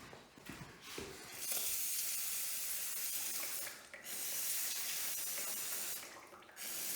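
Aerosol spray can of cleaner sprayed in two long hissing bursts, a couple of seconds each, cleaning spilled oil off the engine.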